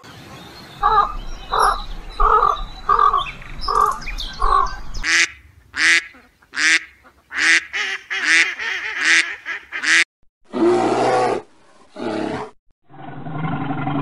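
A duck quacking in a quick run of about eight sharp quacks, a female mallard. Before it come six evenly spaced honking bird calls, and after it two short rough growl-like sounds.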